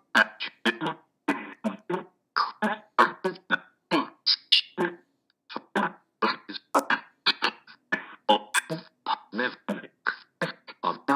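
Echovox ghost-box sound bank played back at random: a choppy run of tiny clipped speech fragments, about three a second, each cut short with a brief gap before the next. This is what an Echovox session sounds like.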